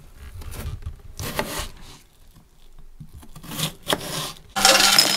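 Scattered soft rubbing and scraping handling noises. About four and a half seconds in, a steady hiss with a low hum starts suddenly.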